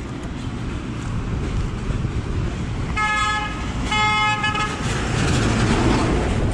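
A vehicle horn honks twice, two short blasts about a second apart, over the steady noise of street traffic, which grows louder near the end.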